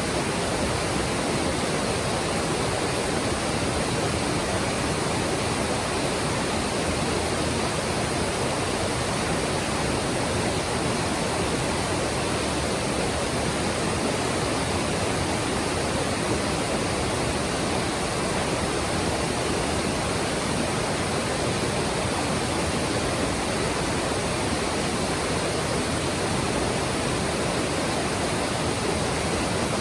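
Mountain stream rushing over rocks: a steady, even rush of flowing water that does not change.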